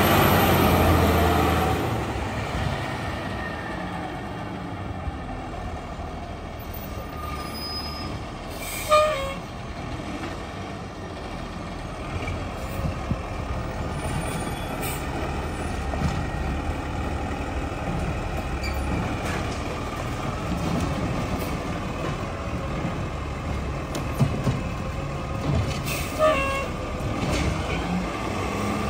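Diesel engine of a Ginove Rotopac side-loader garbage truck. It runs loudest for the first couple of seconds, then settles into a steady run as the truck drives along the street. Short brake squeals and air-brake hisses come about nine seconds in and several times near the end as it slows for the next carts.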